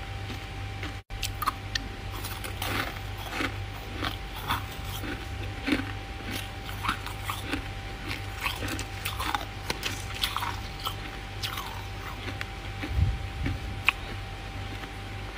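Freezer frost being bitten and chewed: irregular crisp crunches, several a second, over a faint steady hum.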